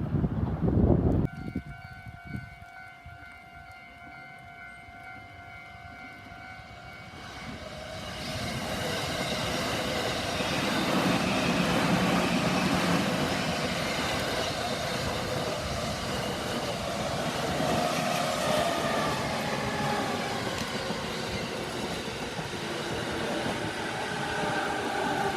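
A Japanese level crossing's electronic warning bell sounds in a rapid, evenly pulsing ring, after a short burst of wind noise on the microphone. About eight seconds in, a train's running noise builds over the bell and carries on as the train passes the crossing.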